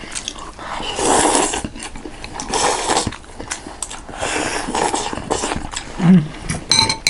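Noodle soup (thukpa) being slurped and eaten close to the microphone: several noisy slurps, one every second or two.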